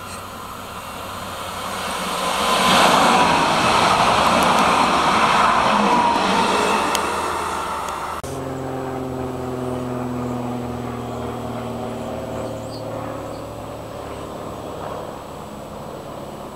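A two-car electric tram-train approaching and passing at speed. The wheels rumble on the rails, loudest for a few seconds, and a motor whine drops in pitch as it goes by. After a cut about eight seconds in, a quieter steady hum with several tones that slowly fall.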